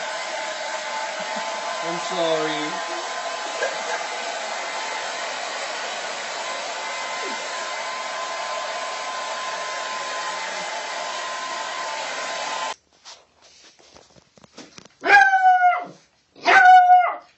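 A steady blowing hum, like a hair dryer running, that cuts off abruptly about 13 seconds in. Then a puppy gives two high-pitched barks, about a second and a half apart, near the end.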